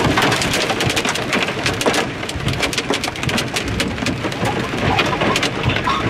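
Heavy hail, nickel to quarter size, pelting down. It makes a dense, rapid clatter of hailstones striking hard surfaces over a steady rush of wind-driven rain.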